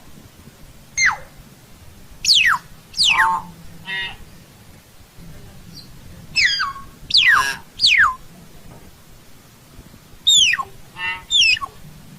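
Common hill myna calling: a string of loud, piercing whistles that sweep steeply downward, mixed with a few harsher, grating notes, each call well separated from the next.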